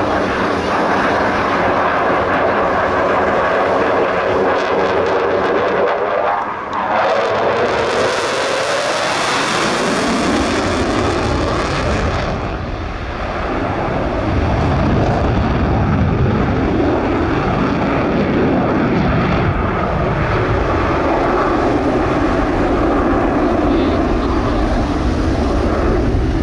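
Fixed-wing aircraft flying by at an airshow, its engine noise loud and continuous. A sweeping change in tone comes about seven seconds in, a strong hiss follows from about eight to twelve seconds, and a deep rumble runs on after that.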